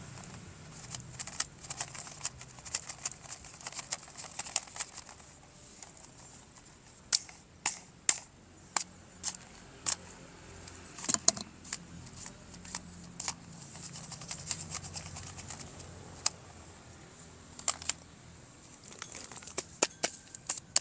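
Irregular clicks and taps of small hard toy parts and packaging being handled, some single sharp clicks standing out from a run of lighter rattling.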